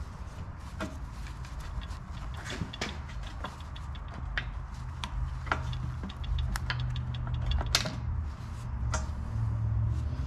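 Scattered light clicks and taps of metal parts as an automatic-transmission valve body is handled and wiped with a shop rag on a steel bench, over a steady low hum.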